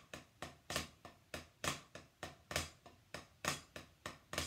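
Drumsticks playing flam triplets on a drum practice pad at 65 beats per minute: steady strikes about three a second, with the first of each group of three accented.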